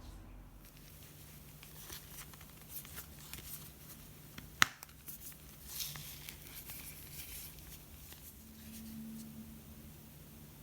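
Quiet handling noise: small clicks and rustles, with one sharp click about halfway through and a brief scratchy rustle soon after.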